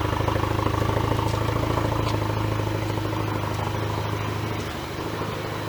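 Hyundai Veloster Turbo's four-cylinder engine running steadily at idle, with a slight dip in level and pitch about five seconds in.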